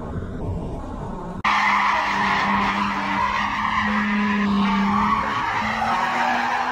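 After a second and a half of low background noise, car tyres squeal loudly and continuously on asphalt as a silver Mercedes CLK coupe drifts in tight circles, with a steady engine note beneath the squeal.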